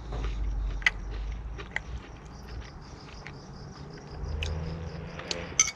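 A person eating: chewing a mouthful, with a few sharp clicks of cutlery against a plate, over a faint steady high chirring of insects.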